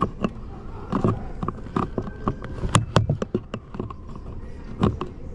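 Irregular sharp plastic clicks and knocks of car door trim-panel push-pin clips being pressed in and pried out, with the panel being handled.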